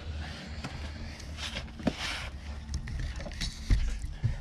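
Handling noise of a rubber exhaust hanger being worked onto a hanger pin: scraping and rustling with a few sharp knocks. The loudest knocks come just under two seconds in and again near the end.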